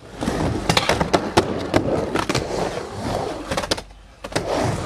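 Skateboard wheels rolling on ramp and pavement, with repeated sharp clacks of boards and trucks hitting and landing.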